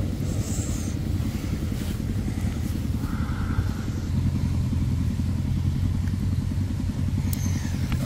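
An engine running steadily as a low drone; its sound thickens with a second low tone about halfway through.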